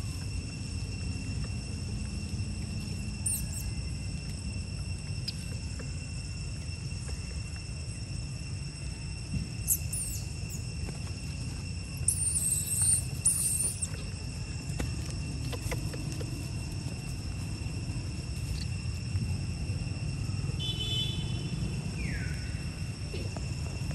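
Outdoor ambience: a steady low rumble with a constant high thin drone, broken by a few brief high-pitched calls, the loudest lasting about a second and a half some twelve seconds in, and a short falling call near the end.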